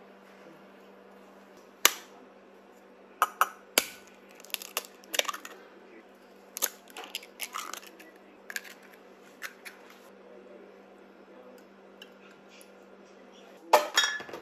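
Eggs being cracked open and emptied into a glass bowl: a series of sharp cracks and clicks of shell, with the loudest crack near the end.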